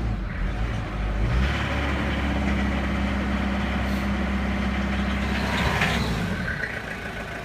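Mitsubishi Shogun's 2.8-litre 4M40 turbo-diesel engine running cold. Its pitch rises about a second and a half in, holds steady, and falls back near the end.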